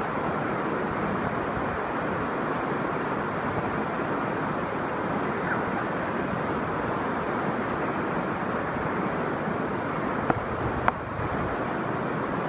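Minoo Falls waterfall running as a steady, dense rush of falling water, its flow swollen after a typhoon's heavy rain. Two brief sharp clicks about ten seconds in.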